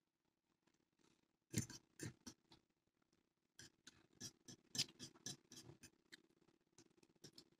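Quiet sounds of two people eating noodles: forks clicking and scraping on ceramic plates along with mouth sounds of slurping and chewing. The clicks come in a scatter, busiest in the middle, over a faint steady hum.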